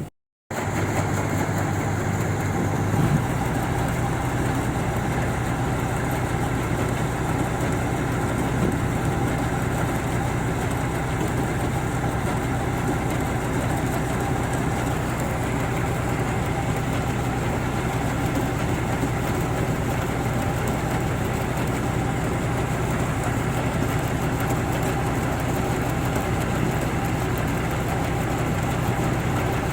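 Combine harvester engine running steadily while unloading rice, a constant low mechanical drone with a slight change in tone about three seconds in.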